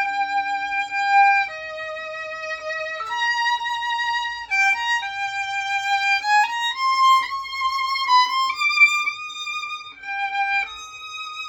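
Solo violin playing a slow, held melody that shifts between 3rd, 2nd, 4th and 5th positions, starting on a B flat in 3rd position on the D string. The notes step down, then climb higher in the second half.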